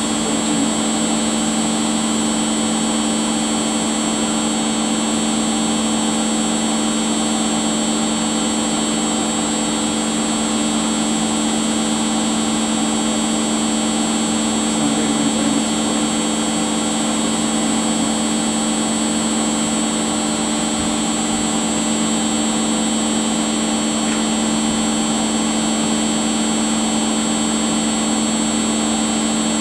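A household appliance running with a steady motor hum that holds an even pitch throughout.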